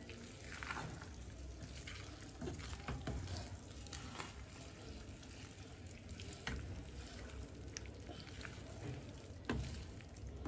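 Wooden spoon stirring githeri (boiled maize and beans with potatoes) in a metal pot over a gas flame: soft scraping, with occasional knocks of the spoon against the pot, over a faint sizzle.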